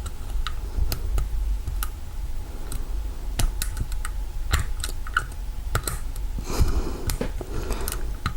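Metal lock picks clicking and scraping inside the keyway of an old Kwikset doorknob lock as it is raked, irregular sharp clicks a few a second, with a longer scrape about six and a half seconds in.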